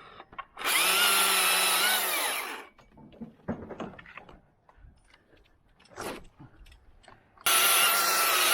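Battery electric chainsaw run twice in short bursts of about two seconds and a second and a half, its motor whining steadily with the pitch dipping slightly under load. Light knocks and clatter between the bursts.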